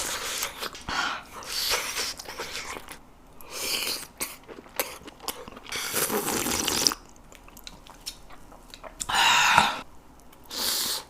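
Close-miked eating sounds: crunchy bites and chewing of food, in separate noisy bursts, the longest about six seconds in.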